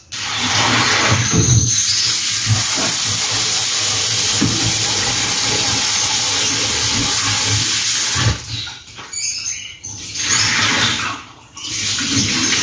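Kitchen tap running hard into a stainless steel sink. It stops about eight seconds in, and near the end it runs again as vegetables are rinsed in a colander under the stream.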